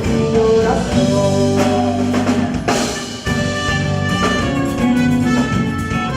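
Band playing the instrumental closing bars of a festa junina song, with drum kit and sustained pitched instruments; a sharp drum hit about two and a half seconds in.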